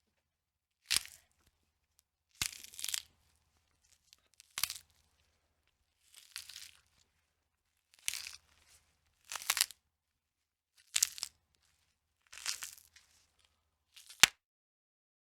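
Bone-cracking sound effect: a series of dry cracks and crunches, about nine in all, roughly one every second and a half with silence between. Some are single sharp snaps and others are longer crackling crunches.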